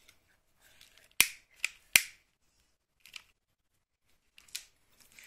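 Sharp clicks from a stick lighter being handled and triggered: three close together about a second in, then two fainter ones.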